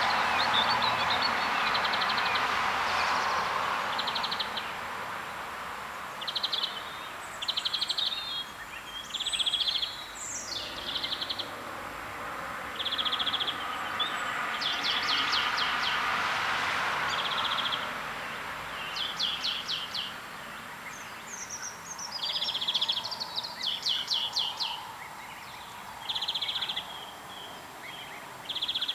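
Small birds chirping and trilling in short repeated phrases throughout, over a rushing background noise that swells near the start and again around the middle.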